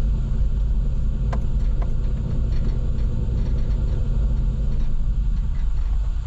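Vehicle engine running with a steady low rumble. Two light clicks come about a second and a half and two seconds in.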